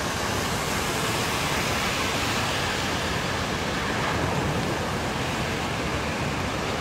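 Floodwater rushing: a steady, even noise with no separate events.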